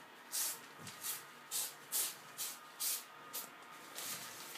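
A domestic cat licking a shower curtain: rhythmic rasping strokes of its tongue on the curtain, about two a second. Near the end the strokes stop and give way to a softer rustle of the curtain.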